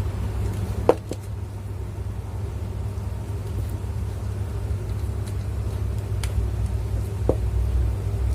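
Steady low rumble with a few small clicks and knocks, the sharpest about a second in and another near the end, from a wire being fitted into a switch terminal by hand.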